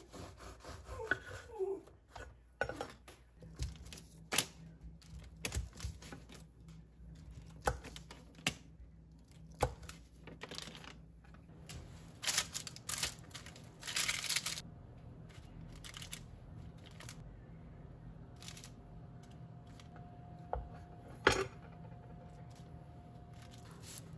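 Kitchen handling sounds: scattered taps and knocks of a knife and English muffin halves on a wooden cutting board and a metal baking pan, with parchment paper rustling in a couple of bursts about halfway through. A low steady hum comes in a few seconds in, and a single sharp knock near the end is the loudest sound.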